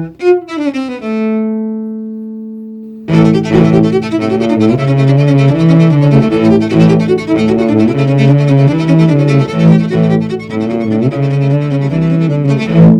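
Amplified electric cello playing: a few quick notes, then one held note that slowly fades. About three seconds in, a loud, busy passage of fast notes starts.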